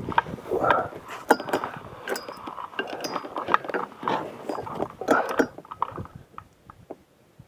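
Irregular knocks and clicks of a fishing rod and spinning reel being handled in a kayak, dying down near the end.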